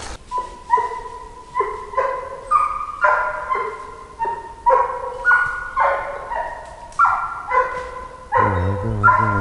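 Scent hound baying on a trail: a long run of short, ringing calls at about two a second, the sign of a hound giving tongue as it picks up and follows a fresh scent. A man's voice comes in near the end.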